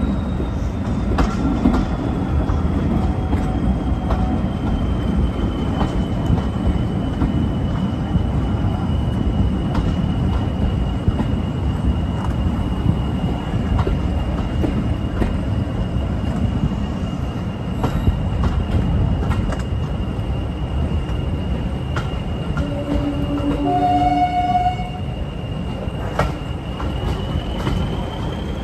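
Class 40 diesel locomotive's 16-cylinder English Electric engine working hard ('thrash'), heard from a carriage behind it, with the rumble of the train on the rails. A steady high whistle, the Class 40's turbocharger whistle, slides slowly down and back up. A short horn blast sounds near the end.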